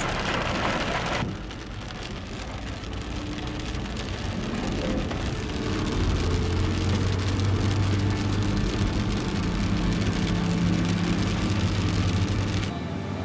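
Rain hitting the windshield of a car driving on a wet road, heard from inside the cabin, with a steady low hum of engine and tyres from about halfway through.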